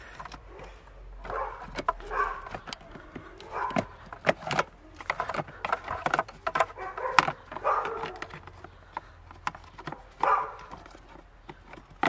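Plastic dashboard trim and wiring of a VW Bora being worked loose by hand: irregular sharp clicks and knocks, with scratchy rubbing between them.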